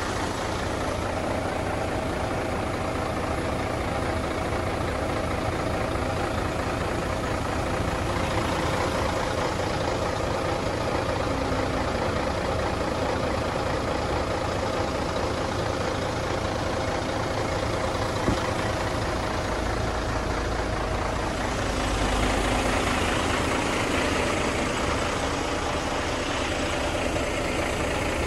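Truck-mounted concrete pump's diesel engine running steadily at idle while the crew waits to pour. The low rumble grows a little louder about three quarters of the way through.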